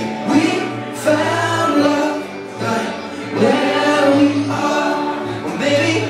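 A man singing into a microphone through a PA over amplified backing music, with held, sliding notes over a steady bass line.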